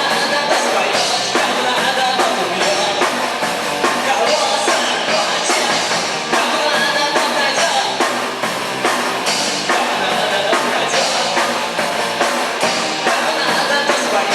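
Live rock band playing loud and steady, with a drum kit keeping a regular beat under electric instruments and some singing.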